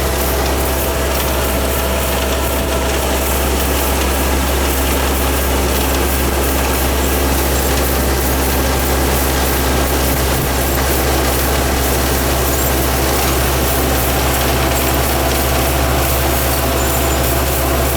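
Yanmar Ee214 combine harvester running steadily, its engine and machinery giving a constant drone with a low hum.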